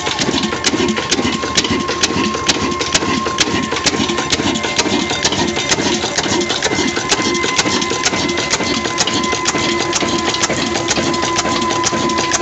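Old black 26 HP desi stationary engine running steadily, with an even clicking beat about three times a second over its running rumble and a faint steady whine.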